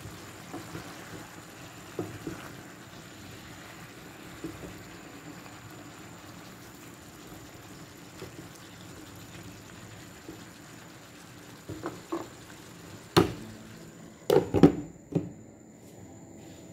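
Chop suey vegetables and quail eggs sizzling and simmering in a pan, a steady hiss with light scrapes and taps as a spatula stirs. Near the end a few sharp loud knocks as a glass lid is set on the pan, after which the hiss drops away.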